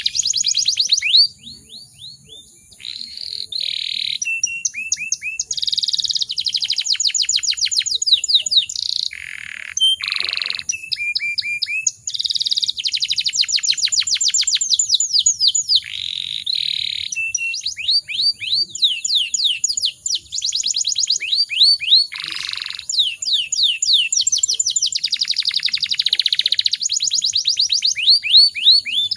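Domestic canary singing a long rolling song: fast trills of repeated notes, each phrase switching to a new pitch and speed, broken by a few short pauses.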